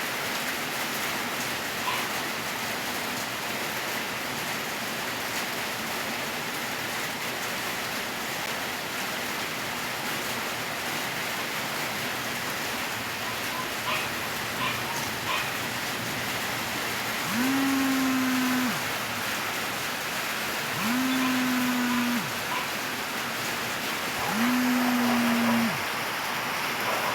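Smartphone vibration motor buzzing in pulses, each about a second and a half long and about three and a half seconds apart, starting about two-thirds of the way in. It is the vibrate pattern of a ringing alarm, heard over a steady hiss.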